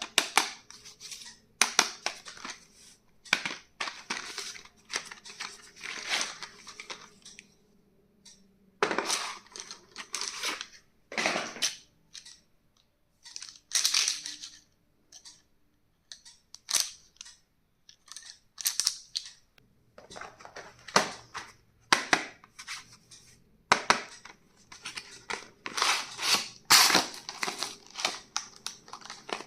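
Stationery packaging being handled and opened: an irregular string of crinkles, rustles, tearing and sharp clicks, with short pauses between them.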